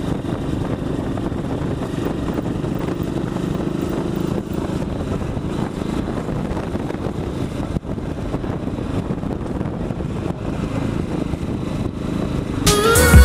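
Honda Africa Twin's V-twin engine running at steady road speed, mixed with a rush of wind noise on the onboard camera. Music comes in near the end.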